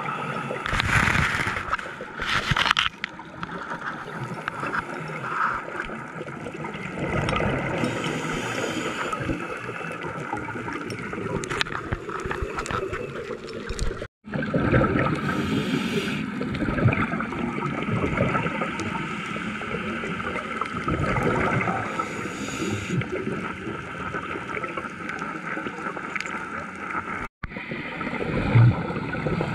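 Underwater scuba breathing: a regulator's breaths and exhaled bubbles gurgling and rushing in surges. The sound cuts out suddenly twice, about halfway through and near the end.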